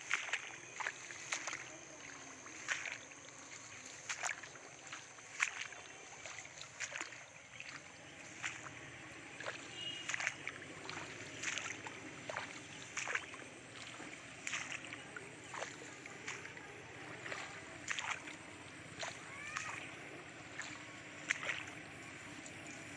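Someone walking through a wet rice paddy: irregular swishing and splashing steps as the plants brush past, about one every second. A steady high-pitched whine runs underneath, with a few short chirps in the second half.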